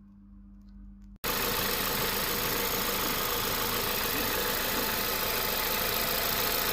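Audi TFSI petrol engine idling, loud and steady, close to the microphone. It cuts in abruptly about a second in, after a faint low hum.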